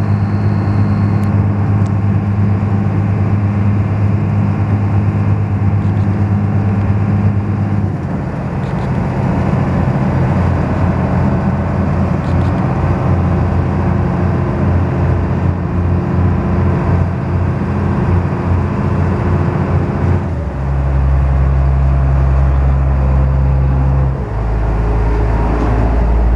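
Engine of a small harbour ferry heard from on board, a loud steady drone. Its note shifts about eight seconds in and again around twenty seconds in, running deeper and louder near the end.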